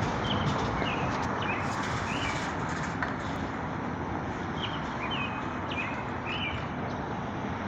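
Small birds chirping in short, repeated notes, in two runs: one at the start and another about five seconds in, over a steady background hiss.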